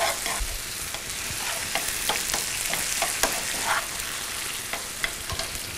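Food sizzling in frying pans on a gas hob, a steady hiss with scattered light clicks and scrapes of a utensil against the pan as the chicken in tomato sauce is worked.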